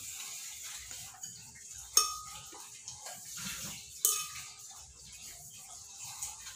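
Kitchenware clinking: two sharp clinks about two seconds apart, each ringing briefly, amid soft handling noise on the table.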